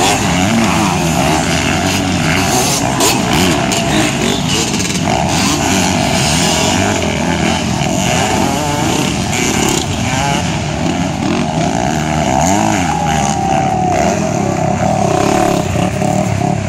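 Motocross bikes racing on a dirt track, their engines revving up and down as they accelerate, with several engine notes overlapping.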